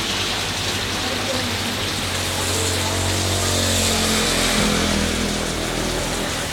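Heavy tropical rain pouring steadily onto the road and the shelter roof, with the low hum of motorbike engines underneath; the hum changes as a motorbike passes close about four seconds in.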